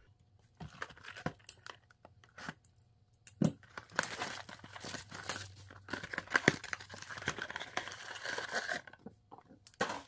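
A cardboard trading-card blaster box being handled and torn open: scattered taps and scrapes, then several seconds of tearing and crinkling from about four seconds in, with a short pause near the end.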